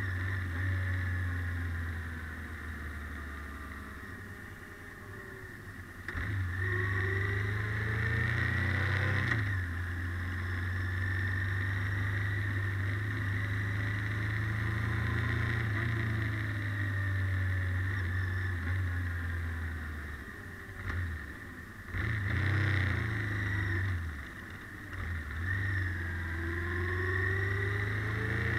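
Honda NT700V Deauville's V-twin engine running under way in slow traffic, with road and wind noise. The engine note eases off twice, once about 4 seconds in and again about 21 seconds in, and its pitch climbs again near the end as the bike speeds up.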